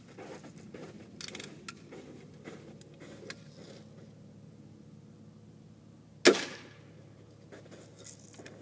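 A single BB gun shot about six seconds in: one sharp crack with a short fading tail. A few faint clicks and rustles come before and after it.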